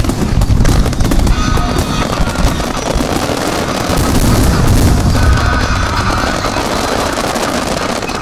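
A starmine fireworks barrage: many aerial shells bursting in quick succession, with a continuous rolling rumble of booms and a crackle of stars.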